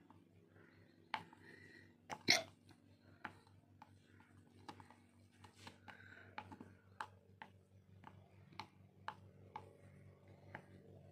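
A spoon stirring chilled shampoo slime in a plastic container: a run of short wet clicks and squelches, about two a second, with one louder one a couple of seconds in.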